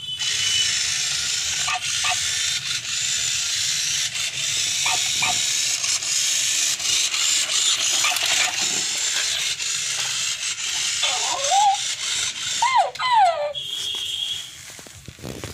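Silverlit Ycoo robot dog's small geared motors whirring steadily as it moves. Near the end come a few swooping electronic yips from its speaker. The whirring then stops and a short high beep sounds.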